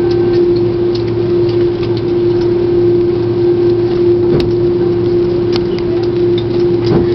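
Airliner cabin noise while taxiing: the steady drone of the jet engines and cabin air, with one constant humming tone and a few faint clicks.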